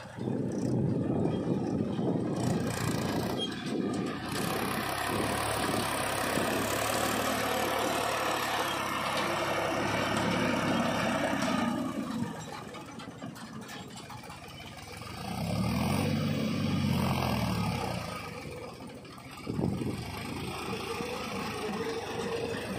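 Mahindra 275 DI three-cylinder diesel tractor engine running hard while hauling a loaded trolley. It eases off for a few seconds past the middle, then revs up and falls back once before settling into a steady pull.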